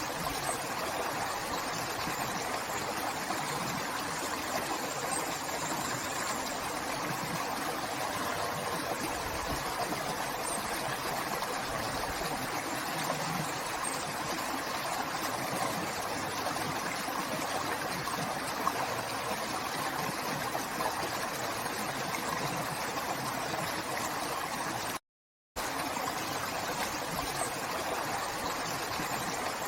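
River water flowing, a steady rushing with no speech over it. The sound cuts out completely for about half a second near the end, then resumes unchanged.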